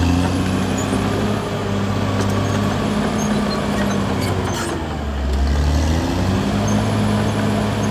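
Caterpillar D6R XL bulldozer's diesel engine running under work. Its pitch dips about five seconds in, then climbs back up a second later.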